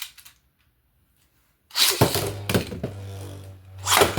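Beyblade X tops battling in a plastic stadium: near silence for the first second and a half, then a sudden start and several sharp clacks as the tops collide, with a steady hum from the spinning tops.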